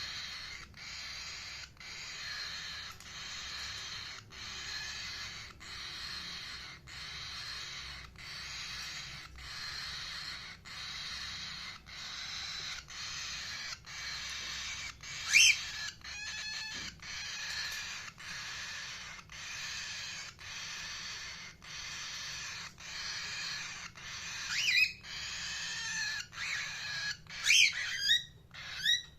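Indian ringneck parakeet giving short, loud, sharp screeching calls: one about halfway through, followed by a quick run of clicks, and three or four more close together near the end. Under them runs a steady high hiss that drops out about once a second.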